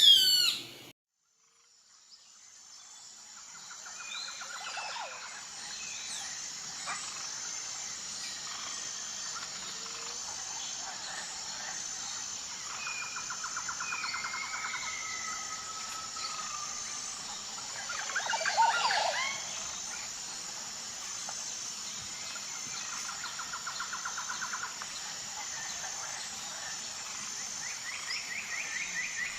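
Rainforest ambience: a steady high insect drone with a regular pulse, repeated rapid trills, and scattered bird calls, with a louder flurry of calls a little past the middle. It opens with a short loud bird call that cuts off, and the ambience fades back in after a brief silence.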